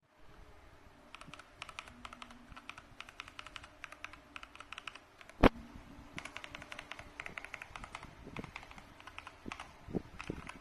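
Typing on a mechanical keyboard: a fast, uneven run of key clicks, with one much louder sharp clack about halfway through.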